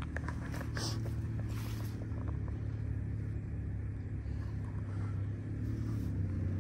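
Steady low engine hum, with a few light ticks near the start.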